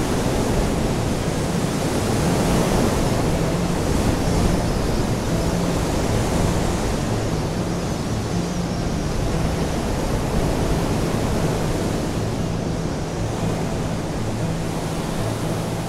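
Steady noise of strong wind and breaking surf.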